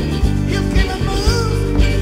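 Live rock band playing: electric guitar, bass and drums with a steady beat, and a bending melody line riding above.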